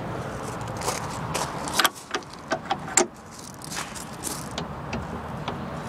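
Several sharp clicks and knocks in quick succession, the loudest about two and three seconds in, over a steady low background noise.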